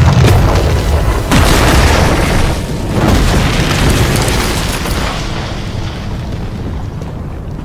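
Sound-effect blast of a powerful shockwave: a deep boom, a second sharp hit about a second in, then a long rush of noise that fades away over the last few seconds.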